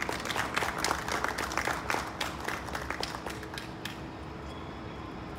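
Audience applauding: a burst of dense, irregular hand claps that thins out and dies away about four seconds in.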